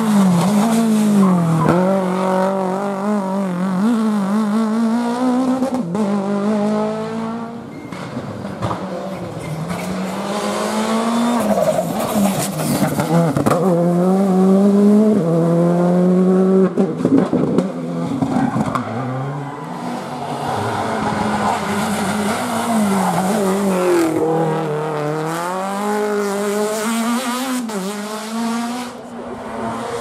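A succession of small rally cars at full throttle on a tarmac stage: each engine revs up and drops back again and again through the gear changes as the car passes, with tyres squealing in the corners.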